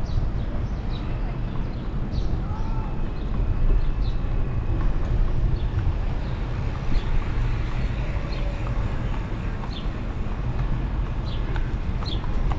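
Park-road ambience heard from a moving bicycle: a steady low rumble with scattered faint chirps, and a horse's hooves clip-clopping near the end.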